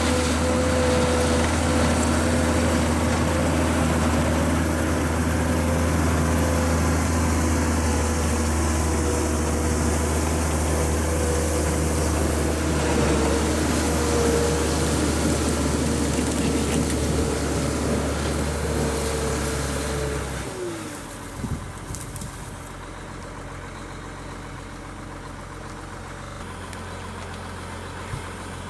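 Tracked snowcat's diesel engine running under load with a steady whine while it drags a tree, then winding down to a quieter idle about two-thirds of the way through, with a couple of short knocks just after.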